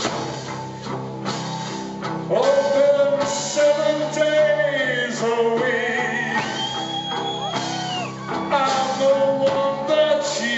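Live rock band playing electric guitars and drums, with sung vocals that hold long notes.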